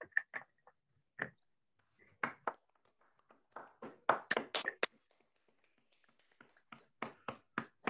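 Hand clapping: a short run of separate claps at uneven spacing, coming in bunches, the loudest run a little past the middle.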